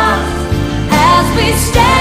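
Contemporary Christian worship music: a band playing held chords under a melody.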